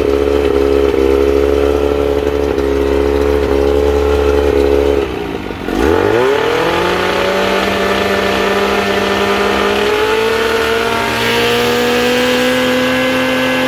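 1987 Johnson 25 hp two-cylinder two-stroke outboard motor running steadily, freshly rebuilt carburettor and fuel pump, running fine. About five seconds in, its speed drops sharply and climbs straight back, settling at a steady, slightly lower pitch.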